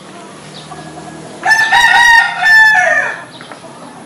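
A rooster crowing once, a call of about a second and a half starting about a second and a half in, over a low steady outdoor background.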